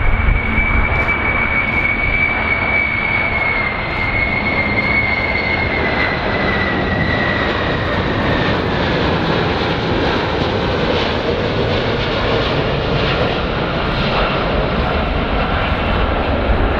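Boeing VC-25A (747-200 airframe) on final approach with gear down, its four General Electric CF6-80C2 turbofans running as a steady loud roar. A high whine slowly falls in pitch over the first several seconds.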